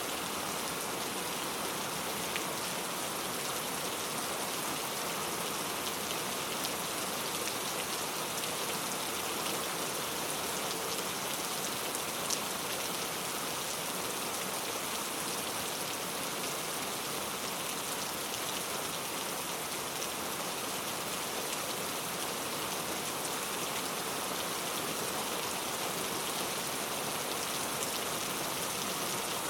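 Very heavy rain falling steadily: a dense, even hiss of rain on surfaces, with a few sharper single drop hits standing out now and then.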